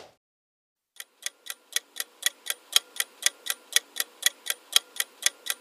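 Countdown-timer sound effect: a clock ticking evenly, about four ticks a second, starting about a second in.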